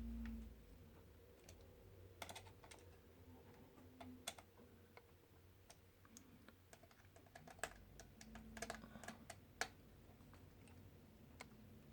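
Faint, irregular clicks and light taps of small plastic and metal parts being handled inside an opened laptop, with a few clusters of quick clicks. A low hum cuts off about half a second in.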